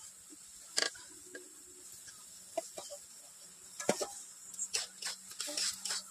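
Scattered clinks and scrapes of a steel bowl and spoon against a kadai as boiled potato pieces are tipped into simmering tomato gravy. There is a sharper knock about four seconds in, then a quick run of scrapes as the pot is stirred.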